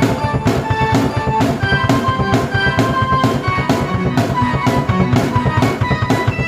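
Drum kit and keyboard played together by one performer: a steady, driving beat with a keyboard melody of held notes over it.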